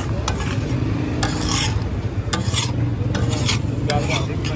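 Metal spatula scraping across a flat tawa griddle in repeated rasping strokes, about two a second, as the chicken gravy is pushed off the plate. A steady low hum runs underneath.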